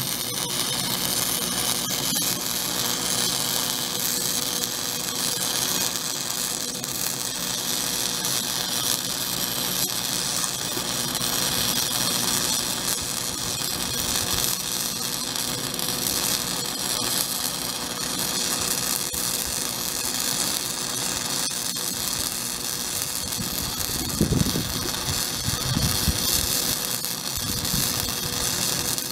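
A Lincoln Pro-Core 100 flux-core wire-feed welder runs a continuous bead on a steel patch in a truck's bumper bracket, giving a steady hiss from the arc. A faint steady tone sits under it, and there are a couple of brief knocks near the end.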